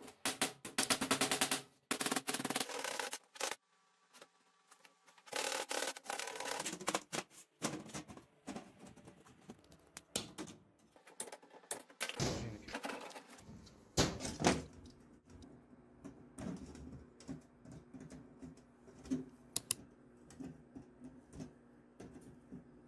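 Welded steel wire mesh rattling and clattering against a steel workbench as it is handled and bent into a cage. There are a couple of sharper metal knocks about halfway through, then lighter, scattered metallic clicks as the mesh panels are joined.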